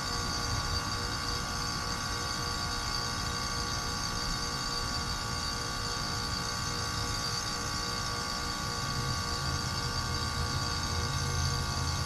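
Lennox Merit heat pump outdoor unit running in heating mode: a steady mechanical hum with several constant high whining tones. The low hum swells about three quarters of the way through.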